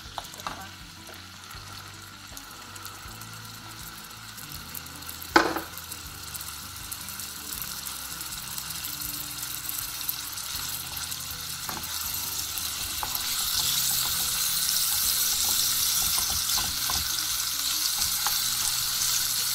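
Cubed raw pork frying in a little oil in a nonstick pan, stirred with a spatula. The sizzle grows louder about two-thirds of the way through as the pan heats, with light scraping throughout and one sharp knock about five seconds in.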